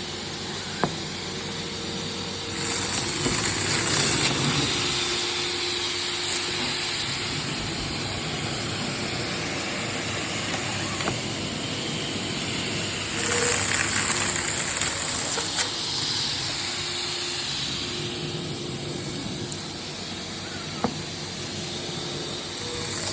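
Wood-cutting machine running steadily, with two louder, hissing stretches, around three seconds in and again about thirteen to fifteen seconds in, as it cuts through solid wood. A few sharp clicks come between them.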